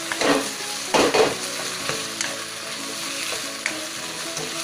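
Vegetables and shrimp sizzling in a nonstick wok while a spatula stirs them. Two louder strokes of the spatula against the pan come about a second apart near the start.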